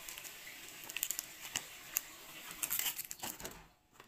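Plastic chocolate-bar wrapper crinkling as it is handled and set into a plastic lunchbox: an irregular run of crackles with a few sharper clicks, dying away near the end.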